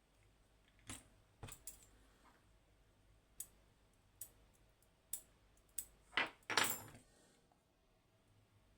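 Small metal lock parts and tools clicking and rattling against each other while the lock is taken apart: a string of separate sharp clicks, then two longer, louder rattles about six seconds in.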